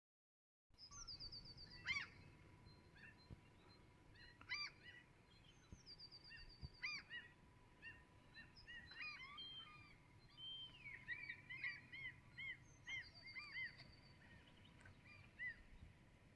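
Faint birdsong and calls: a high trilled phrase sung three times and many short, repeated call notes from more than one bird.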